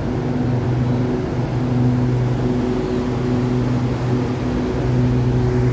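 Steady low electrical and mechanical hum with a droning tone, from an SRT Red Line electric train standing at the platform with its air-conditioning and auxiliary equipment running.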